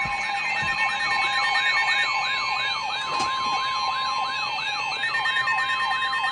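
A steady emergency alert tone held under a fast electronic siren, whose pitch sweeps up and drops again about three times a second, with a quicker high warble above it.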